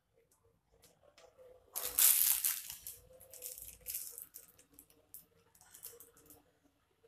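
Plastic crinkling and rustling as it is handled: one loud burst about two seconds in, then softer rustles and light clicks.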